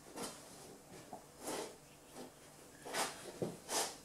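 Putty knife scraping and smoothing glazing putty along a timber window frame: about five short, soft strokes.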